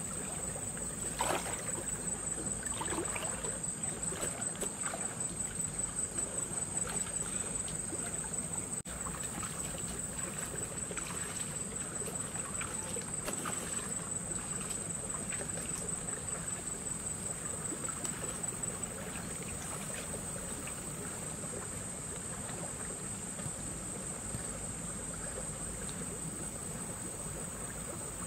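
Two people wading through a shallow stream, the water sloshing and splashing rhythmically with their steps, evening out later on. A steady high-pitched whine runs throughout.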